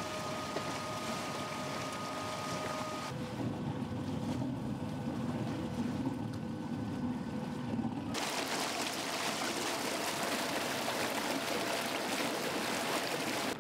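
Rush of water along the hull and through the wake of an Avon eJET 450 electric tender under way, with a faint steady whine for the first three seconds. About eight seconds in, the sound turns to a brighter hiss of churning spray.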